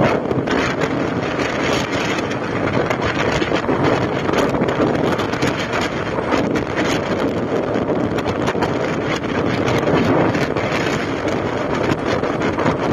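Wind rushing and buffeting over a phone microphone on a moving motorbike, over the bike's engine and road noise, steady throughout.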